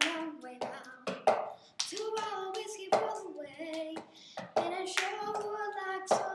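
Cup-and-clap rhythm routine: hand claps, taps and a cup slapped down on a stool top in a repeating pattern of two to three hits a second, with a child's voice holding a tune over it.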